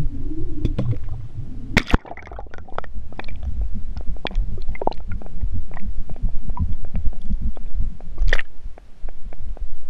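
Sound from inside a GoPro's waterproof housing as it is lowered down a well: low rumbling and knocking, a sharp hit just before two seconds in as it enters the water, then muffled underwater gurgling with scattered clicks.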